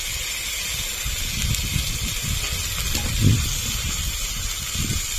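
Curry masala sizzling steadily in hot oil in a wok as the spice-rinsing water goes in, with a metal spatula stirring and scraping through it.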